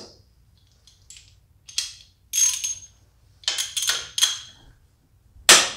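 Hand ratchet with a 9/16 socket clicking in short runs as a bracket-to-manifold bolt is worked, with a light metallic ring. A single sharp knock near the end is the loudest sound.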